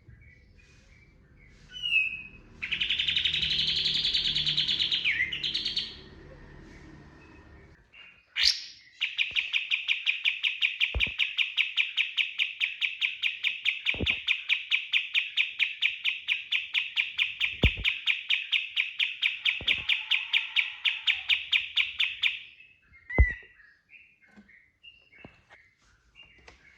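Kapas tembak bulbul singing loudly: a short dense burst of song, then a long run of rapid, evenly repeated piercing notes, about five a second, for some thirteen seconds. A few sharp knocks sound among the notes.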